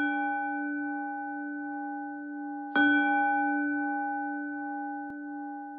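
A struck bowl-shaped bell ringing from a stroke at the start, then struck again about three seconds in. Each stroke is a clear, long-sustained tone that fades slowly.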